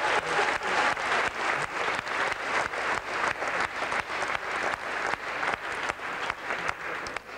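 Crowd clapping in time together, about three claps a second, then stopping sharply near the end.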